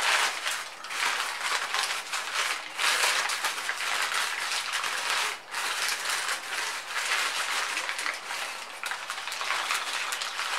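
Crumpled newspaper crinkling and rustling as it is slowly peeled by hand off glass candle holders: a dense, continuous crackle.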